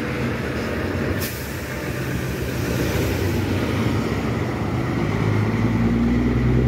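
Water tanker truck's engine running as the truck pulls past and away up the road, with a short sharp hiss about a second in.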